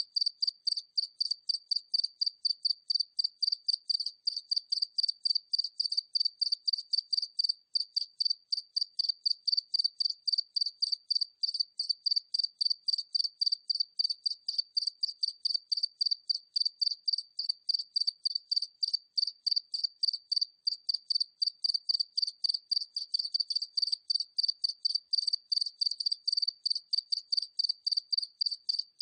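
A single cricket chirping steadily, a high-pitched chirp repeated evenly about three times a second without a break.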